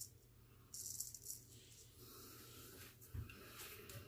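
Gold Monkey 777 straight razor scraping through several days' stubble in short rasping strokes: a burst of strokes about a second in, softer scraping later, and a dull knock a little after three seconds.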